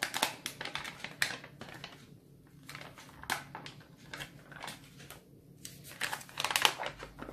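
Pudding-powder sachet crinkling and crackling in the hand as the powder is shaken out into a pot of milk, in quick irregular clicks that are densest near the end.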